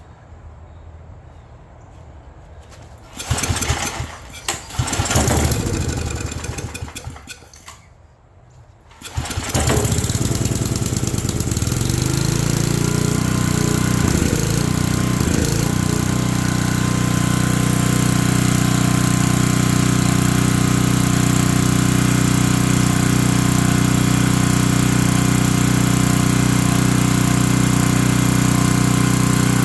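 Generac generator's small gasoline engine pull-started: two rough pulls of the recoil starter that don't keep it going, then it catches about nine seconds in and settles into a steady run. It runs after a carburetor cleaning and a new fuel filter, so the carb was dirty and the needle and seat did not need replacing.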